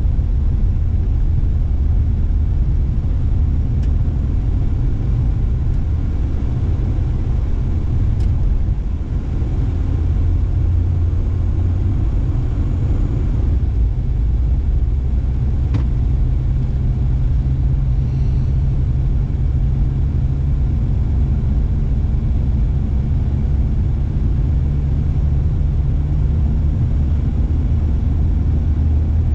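Steady low rumble of a car driving, engine and tyre noise heard from inside the cabin, with a few faint clicks.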